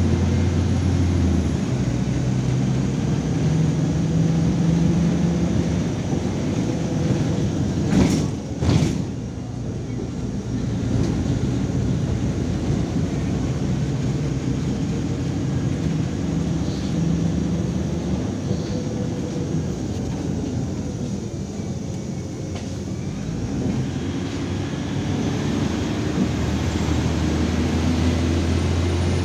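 Cabin sound of a MAZ 103.465 city bus on the move: the diesel engine running with its note shifting as the bus speeds up and slows, over road noise. Two sharp thumps about eight seconds in.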